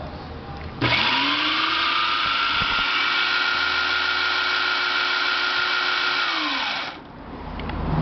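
Electric motor of a Philco multiprocessor (food processor) base switched on. It spins up quickly with a rising whine, runs at steady speed for about six seconds, then winds down with a falling whine after it is switched off. The unit runs, though the repairer says everything inside it is loose.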